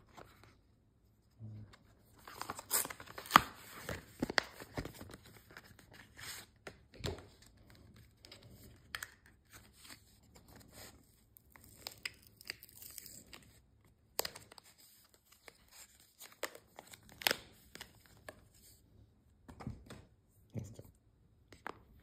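Paper and cardboard Apple Watch packaging being handled and unwrapped: irregular rustling, crinkling and tearing, with scattered sharp clicks and taps, loudest a few seconds in.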